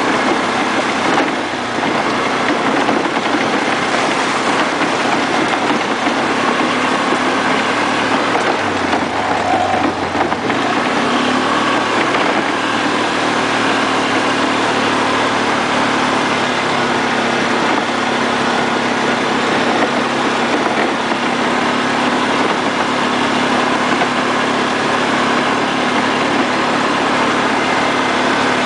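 ATV (quad) engine running steadily at a cruising speed, heard from on board the moving machine; its pitch stays nearly level throughout.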